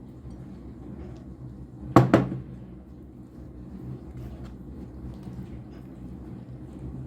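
Two sharp knocks in quick succession about two seconds in, over a low steady hum.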